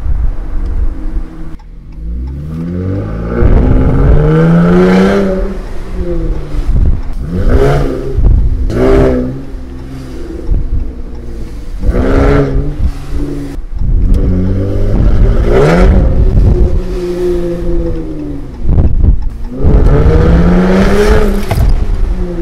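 Muffler-deleted 3.6-litre Pentastar V6 of a Ram 1500, heard from inside the cab while driving: the exhaust note climbs in pitch under acceleration and drops back again, several times over.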